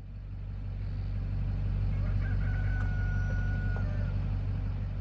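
A rooster crows once near the middle, one long held note, over a steady low engine hum.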